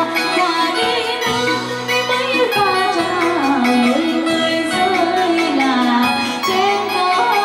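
Vietnamese quan họ folk song performed live: a gliding, ornamented melody over steady instrumental accompaniment.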